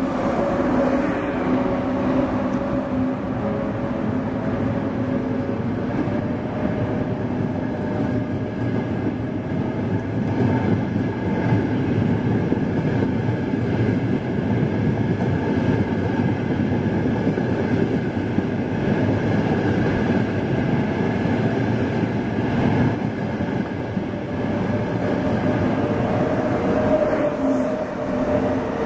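Frecciarossa ETR 500 high-speed electric train running past along the platform: a steady rolling noise from the passenger cars, with a steady whine at the start and again near the end as the power cars pass.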